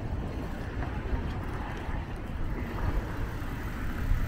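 Traffic noise heard while riding along a city street, with wind rumbling and buffeting on the microphone.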